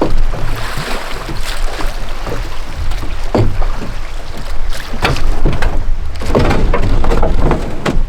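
A boat on the water, with irregular knocks against the hull and splashing over a steady low rumble of wind on the microphone.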